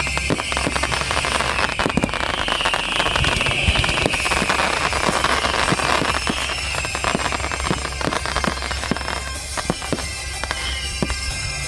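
Fireworks display: a dense, continuous crackling and popping from spark fountains and aerial shells, with high whistles that fall in pitch every couple of seconds.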